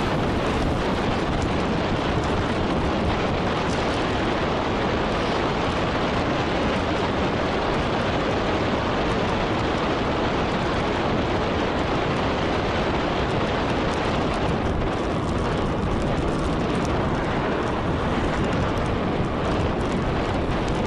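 Steady wind noise buffeting the microphone of a bike-mounted Sony HDR-AS300 action camera on a fast road-bike descent, with no pitched sound in it.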